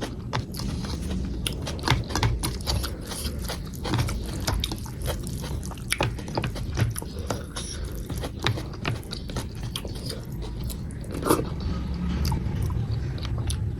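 Close-miked chewing and wet mouth smacks from eating dal, rice and vegetables: a steady run of irregular sharp clicks and squelches, one louder smack about eleven seconds in.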